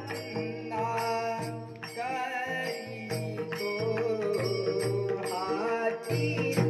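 A singer's voice carrying a Marathi devotional abhang, with ornamented, wavering notes over a steady drone and a repeating low drum beat.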